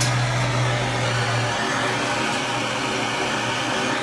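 Handheld gas blowtorch flame running with a steady hiss, heating a copper pipe joint so the silver solder will melt into it.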